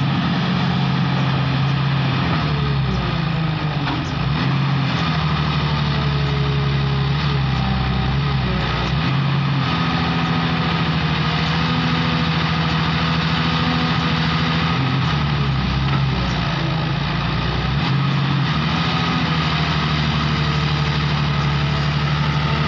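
Komatsu hydraulic excavator's diesel engine running steadily under load, with a faint whine that rises and falls, as the machine works its boom and bucket to drag itself out of deep mud.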